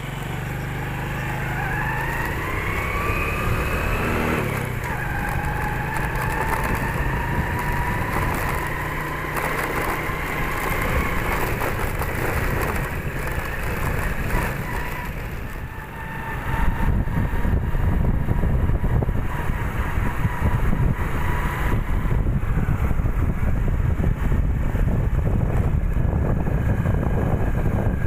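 Small motorcycle engine running while riding: its whine rises as it accelerates, drops sharply at a gear change about four seconds in, then holds steady at cruising speed. A little past halfway, a loud low rumble of wind on the microphone joins it.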